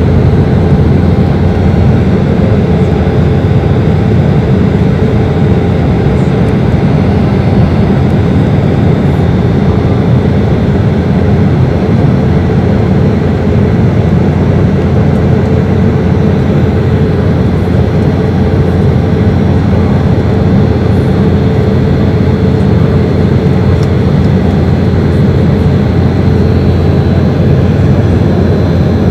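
Cabin noise of an Embraer 190 airliner climbing out after takeoff: its two CF34 turbofan engines and the rushing airflow make a steady low drone with a faint thin whine above it.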